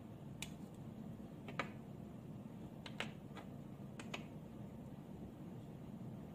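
Small sharp plastic clicks and taps as the battery cover is prised off a Hyundai flip key fob shell and the plastic parts are set down on a wooden table. There are a handful of clicks over the first four seconds, some in quick pairs, the loudest about a second and a half in.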